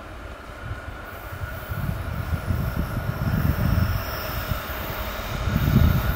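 Loaded iron ore pellet freight train approaching on the rails: a low rumble that grows steadily louder, with a steady high hum above it.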